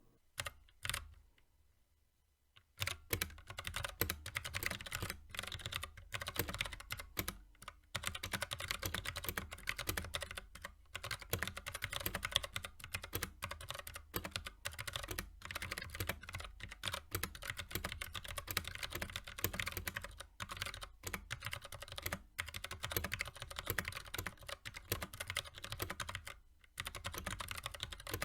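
Typing on a mechanical keyboard fitted with Greetech Brown tactile switches: steady, fast clacking of keystrokes. A couple of lone clicks open it, the typing proper starts about three seconds in, and there is a brief pause near the end.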